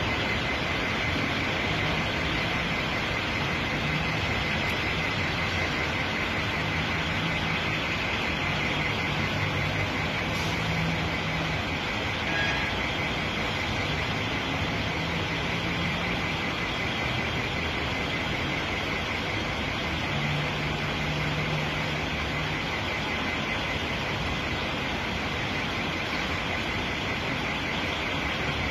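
Steady hiss of heavy rain, with a low traffic hum from the jammed buses and cars that comes and goes every few seconds.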